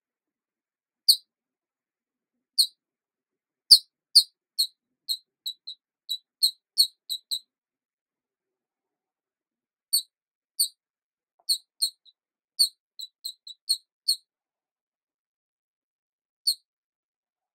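Short high-pitched chirps, all at one steady pitch. First a few single ones, then a quick run of about a dozen. After a few seconds' pause comes a second run, and one last single chirp near the end.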